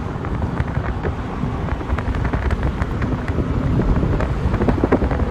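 Steady rumble and wind buffeting the microphone from a car driving at speed, with rough crackling from the wind.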